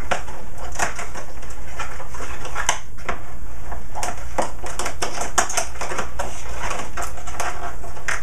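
Scissors snipping through cardboard packaging: an irregular run of clicks and crinkles as the blades cut and the package is handled.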